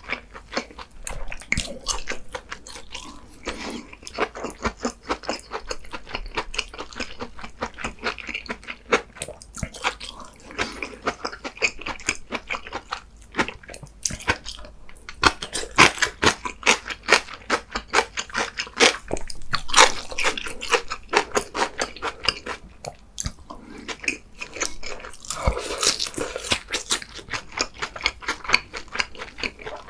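A person chewing and crunching food close to the microphone: a steady run of small wet mouth clicks and smacks, with louder stretches of crunching a few times.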